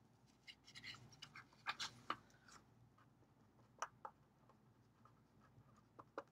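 Faint pen writing on a paper card, with light handling of the card. Short scratches and ticks come in a close cluster over the first couple of seconds, then only a few scattered ones.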